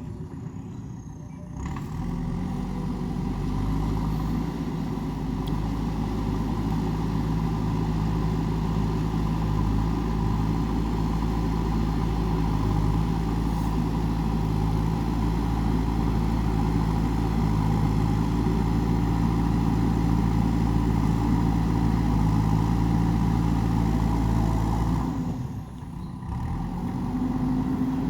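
JCB 3DX backhoe loader's diesel engine working under load with a steady low drone. It steps up about two seconds in, drops off briefly near the end, then picks up again.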